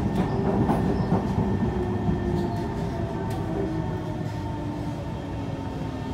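Kawasaki C151 metro train heard from inside the carriage as it slows into a station: a steady running rumble that gradually quietens, with a faint falling tone from the drive and a few light clicks in the first half.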